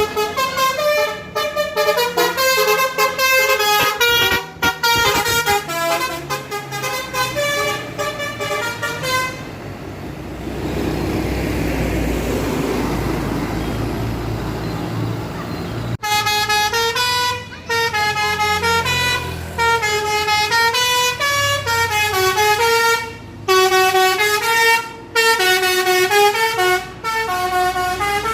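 Tour bus 'basuri' musical air horn playing a melody of quick stepping notes, some of them bending in pitch. For about six seconds in the middle the tune stops and a bus engine rumbles past, then the horn melody starts again.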